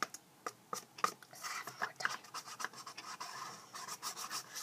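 Cardboard toilet-paper tubes being handled and worked with a small tool: a run of short, irregular scratches and rustles.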